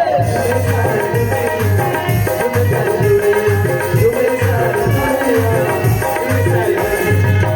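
Instrumental break in a folk song: a steady hand-drum beat, about two strokes a second, with a wavering melody line over it.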